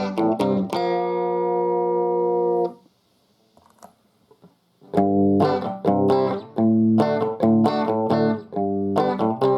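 Electric guitar played through a guitar amplifier. A few quick chord strokes lead into a chord left ringing for about two seconds, which cuts off. After about two seconds of near silence, rhythmic strummed chords start again.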